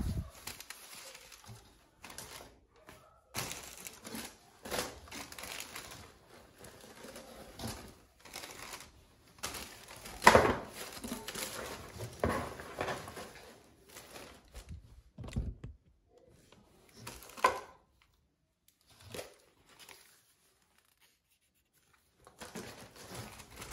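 Household handling sounds: irregular rustling and crinkling with scattered knocks, the loudest about ten seconds in, then a short lull.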